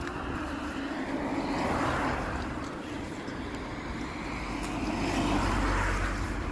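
Cars passing on the road one after another, their tyre and engine noise swelling and fading: one passes about two seconds in, another around five to six seconds in.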